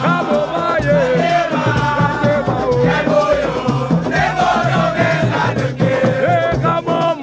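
Music: a melody line with a singing voice over a steady, repeating bass beat.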